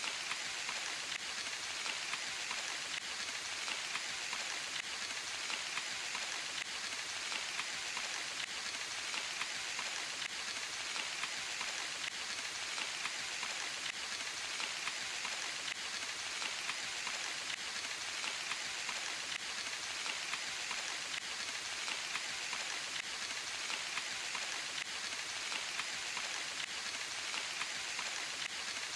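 Steady rain falling in a forest, a dense even patter of drops on leaves and ground.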